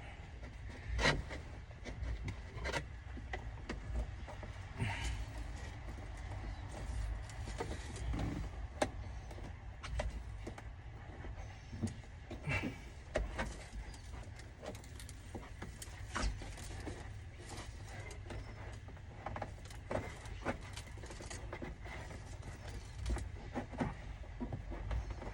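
Irregular light clicks, taps and scrapes of a plastic trim tool working a dash-cam cable into the cab's roof-lining and pillar trim, over a steady low rumble.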